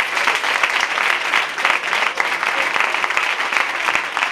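Audience applauding, many hands clapping steadily at once.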